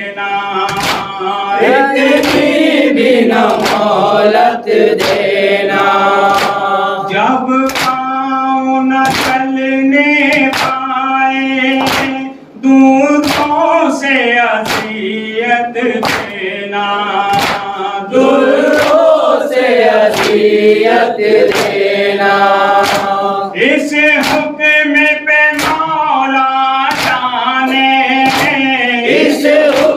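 Male voices chanting a nauha, a Shia Urdu lament, with a group joining in. Sharp hand slaps of matam (chest-beating) keep time at a little more than one a second.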